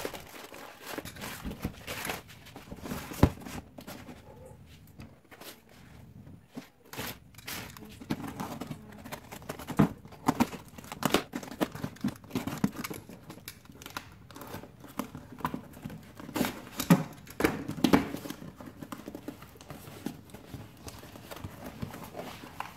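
A cardboard parcel box being unpacked by hand: packing tape slit with a utility knife and torn, and the cardboard and its wrapping crinkling and rustling, with scattered sharp knocks and scrapes.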